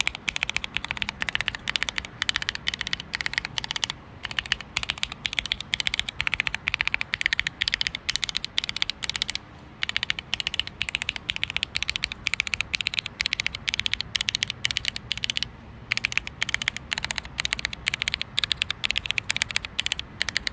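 Fast typing on an irocks K104H keyboard: a dense run of key clicks, broken by short pauses about four, nine and a half, and fifteen and a half seconds in.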